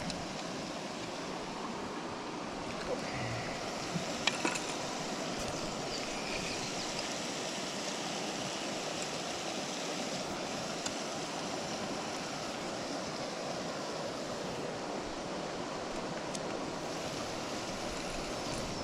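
Steady rushing of river water flowing over rocks, with a few faint clicks about four seconds in.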